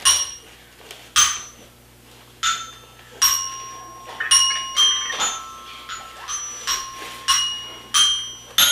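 Toy xylophone struck with a mallet: about a dozen single ringing notes at uneven intervals, each dying away quickly.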